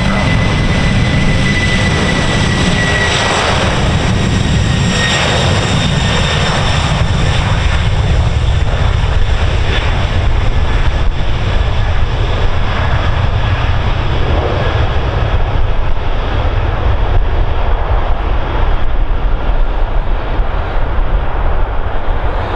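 Boeing 747-400 freighter's four jet engines running at high power as it accelerates down the runway on its takeoff roll. It makes a steady roar with a high fan whine that dips slightly in pitch as it passes, then fades as the jet moves away, leaving a low crackling rumble.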